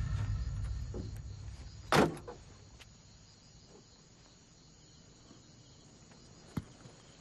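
A van door shuts with a single bang about two seconds in, followed by a smaller knock, as a low rumbling sound fades out. Faint crickets chirp in the background, and a sharp click comes near the end.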